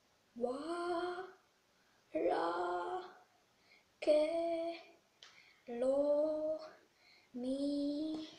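A boy's voice singing a short drawn-out phrase five times, each about a second long, with short pauses between.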